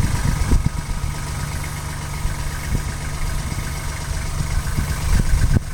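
Vehicle engine idling steadily, with a few short knocks, the loudest a little before the end.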